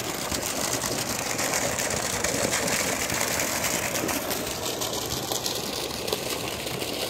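Paddlewheel pond aerator running: a steady mechanical hum with the churn of water.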